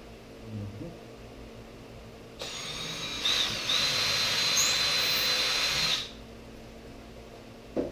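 Power drill driving a Torx construction screw into wood: the motor runs for about three and a half seconds with a steady high whine, speeding up about a second in, then stops. A short knock near the end.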